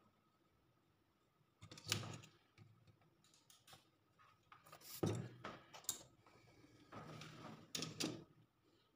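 Faint workbench handling noises while soldering: a few light clicks, knocks and rustles of wire, tools and a metal heat-sink assembly on a wooden bench. Near the end the soldering iron is set back in its stand.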